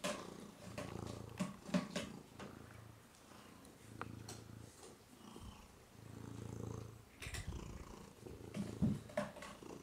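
Domestic cat purring softly, a low rumble that swells and fades with each breath, with a few short clicks scattered through.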